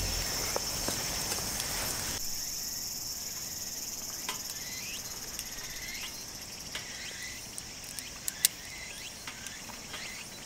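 Insects chirring steadily in a high, even band, with a few sharp crackles from the small wood fire under the grill about eight seconds in.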